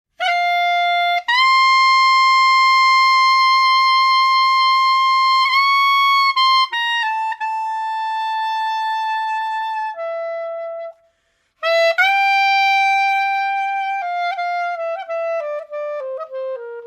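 Film-score music: a solo wind instrument plays a slow melody of long held notes, breaks off briefly past the middle, then steps downward in a run of short notes near the end.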